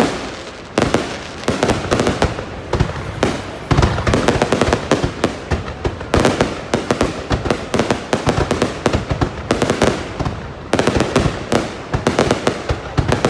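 Fireworks going off in a rapid, near-continuous run of bangs and crackles, growing denser and louder a few seconds in.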